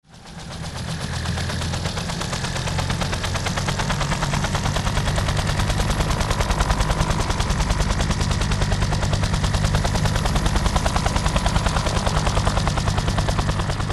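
Battle sound effect: a fast, even chopping rattle over a deep rumble. It fades in over the first second and then keeps going steadily.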